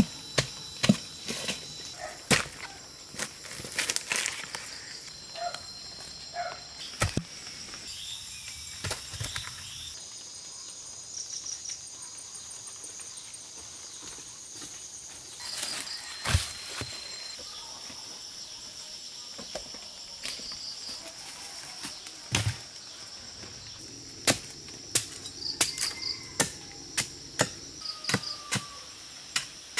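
Sharp knocks and cracks of a knife cutting and handling fresh bamboo shoots, bunched in the first few seconds and again near the end. Insects chirr steadily behind them in a high, pulsing drone.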